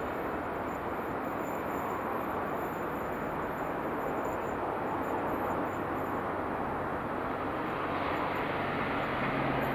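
Castle Class steam locomotive 5043 and its train approaching from far off: a steady rumble that grows slightly louder, with a low hum coming in over the last few seconds.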